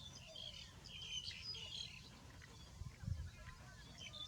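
Small birds chirping and twittering, many short high calls overlapping throughout. A brief low thump about three seconds in.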